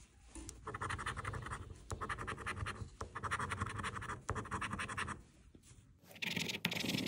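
A coin scratching the coating off a California Lottery scratch-off ticket in about four bursts of strokes. After a short pause near the end, a louder, higher scratching starts.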